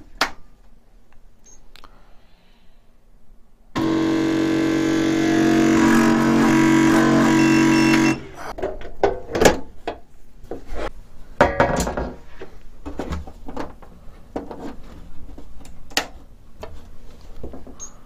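Giantarm D200 3D printer's stepper motor buzzing loudly in place on a homing attempt: a steady hum of several tones for about four seconds that starts and stops abruptly. The harness feeding it has its two centre motor wires swapped. Then a run of clunks and knocks as the metal printer is handled and turned around.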